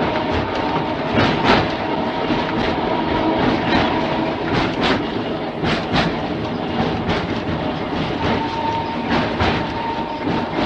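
Mumbles Railway car running along the track, its wheels clicking irregularly over the rail joints under a continuous rumble, with a steady whine running through.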